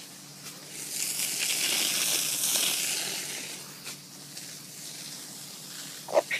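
Water spraying from a garden hose, a hiss that swells about a second in and fades out a couple of seconds later. A short voice sound comes near the end.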